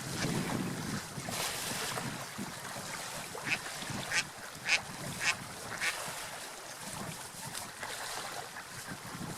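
Ducks quacking: a run of about five short calls, roughly half a second apart, in the middle, over a steady rushing background noise.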